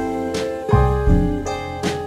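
Background music: electric piano chords changing about every second, with a light tap on the beat.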